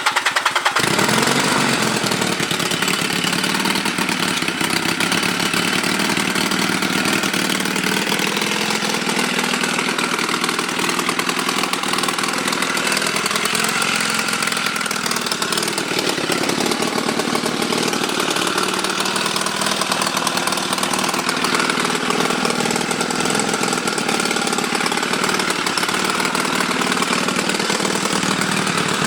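Motorcycle engine, a Chinese clone of the Honda Rebel 250's, running steadily at idle just after starting.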